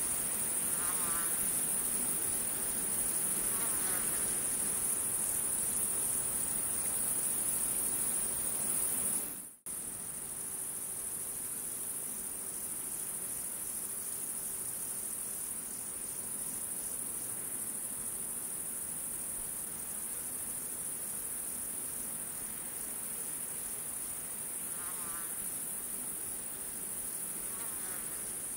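A steady high-pitched chorus of crickets, used as a continuous ambience bed. It cuts out briefly about nine and a half seconds in, then resumes.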